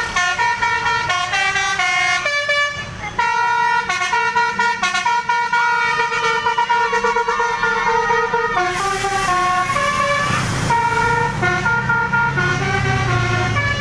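Bus's basuri musical horn playing a melody of held notes that step up and down, over a low engine rumble that grows stronger near the end. About nine seconds in, a hiss lasts for a couple of seconds.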